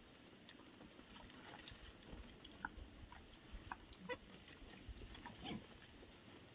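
Faint, scattered grunts and short squeaks from a group of black pigs and piglets, with light clicks and shuffling between them; the most prominent grunt comes near the end.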